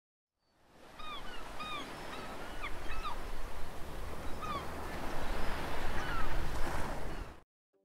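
Nature ambience: short arching bird calls, several in quick succession in the first few seconds and a few more later, over a steady rushing noise that swells towards the end and then cuts off suddenly.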